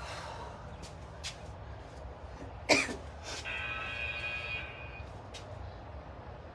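A person coughs once, about three seconds in, over a steady low hum, with scattered light clicks. A steady tone follows for about a second and a half.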